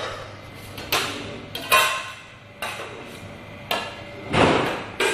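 Metal pizza pans and utensils clattering and knocking in a kitchen: about six sharp metallic knocks, roughly one a second, with a longer clatter about four seconds in.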